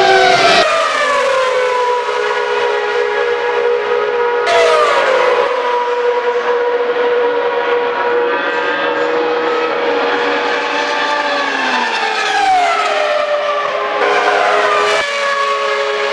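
Ferrari 333 SP race cars' V12 engines running hard as they pass, the pitch gliding down several times as the cars go by. The sound jumps abruptly a few times.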